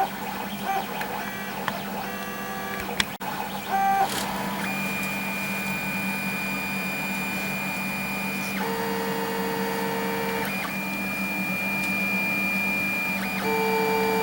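3D printer running, its stepper motors whining in steady tones that jump to new pitches as the print head moves, quickly at first and then every few seconds, over a steady hum.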